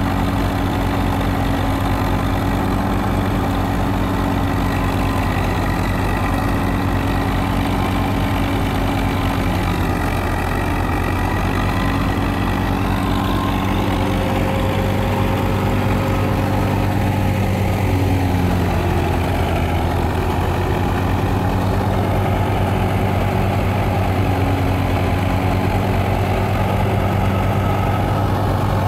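A tractor's diesel engine running steadily with a fast, even beat as it drives a wheat thresher through a shaft, mixed with the thresher's steady whir as wheat is fed in.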